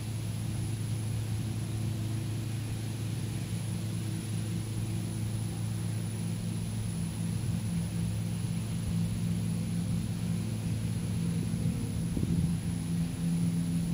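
Steady low drone of an engine or motor running, with a slight shift in pitch about twelve seconds in.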